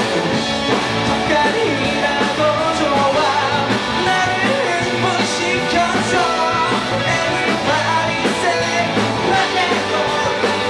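Live four-piece rock band playing an up-tempo rock and roll song: electric guitar, bass guitar, keyboard and drums, with a steady beat.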